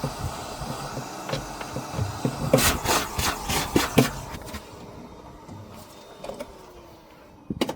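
Carpet being cut and pulled up from a van floor: a run of scraping and tearing noise with sharp knocks and clicks, loudest around three to four seconds in, then quieter.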